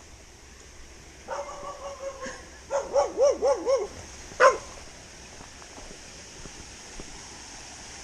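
Border collie vocalising: a held whine, then four quick wavering yips, then one sharp bark, the loudest, about four and a half seconds in. A steady rush of the stream runs underneath.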